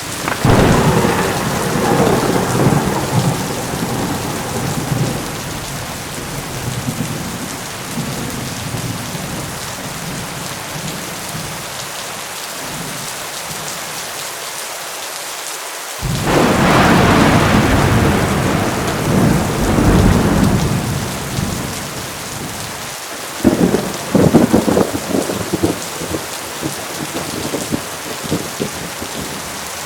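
Heavy rain pouring steadily with thunder. A long rumble breaks right at the start and fades over about six seconds, another rolls in about 16 seconds in, and a series of sharp cracking claps comes around 24 seconds.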